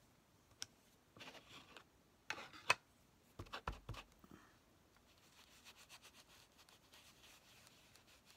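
Faint scrubbing of a brush over paper, stencilling paint or ink onto a journal page: a few separate short strokes, then a quicker run of light strokes from about five seconds in.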